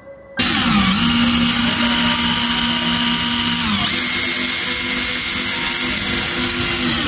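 Makita DTD157 cordless brushless impact driver running free with no bit and no load, so its hammer does not engage: a loud, steady motor whine that starts about half a second in, shifts in pitch about halfway, and cuts off near the end.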